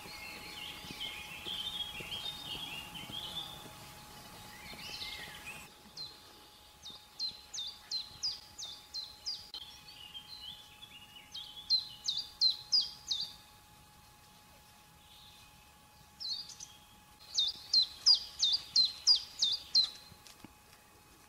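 Small songbirds singing. A light twittering runs for the first several seconds, then a bird repeats sharp, falling high notes in three runs of several notes each, with a faint steady hum underneath.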